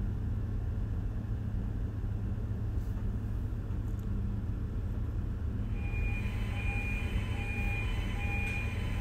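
Steady low hum of engine-room machinery. About six seconds in, an alarm buzzer starts sounding a steady on-off beep: the engine-room alarm for the incinerator abnormal condition, raised because the draft fan has tripped on a draft fault.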